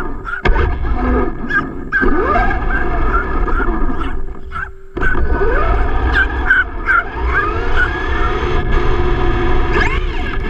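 Traxxas E-Revo electric RC monster truck driving on asphalt, heard from a camera on its chassis: the motor whine rises and falls with the throttle over a loud rumble of tyres and chassis vibration. A small dog barks near the start.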